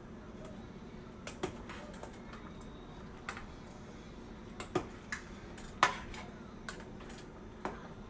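A utensil clinking against a cooking pot while stirring in gravy, about seven scattered sharp taps with the loudest a little before six seconds in, over a low steady hum.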